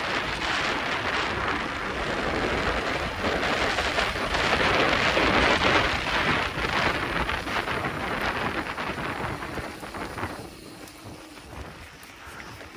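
Mountain bike ride noise: wind rushing over the camera microphone mixed with the tyres rolling over a dirt trail, dying down about ten seconds in.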